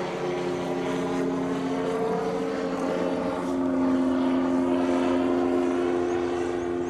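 Microlight aircraft flying overhead: a steady propeller-engine drone that grows a little louder about halfway through.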